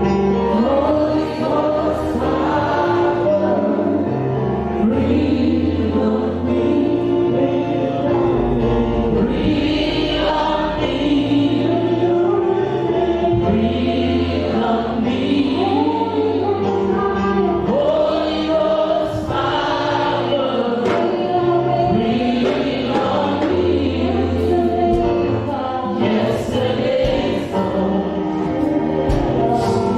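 A slow gospel worship song sung by a group of voices over instrumental accompaniment with long held bass notes.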